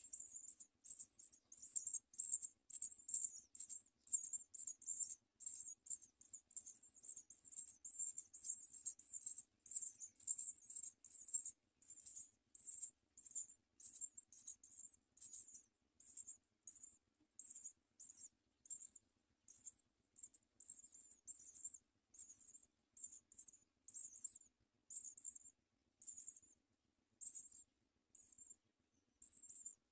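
House sparrow nestlings begging for food: a rapid series of short, high-pitched cheeps, several a second at first, spacing out toward the end.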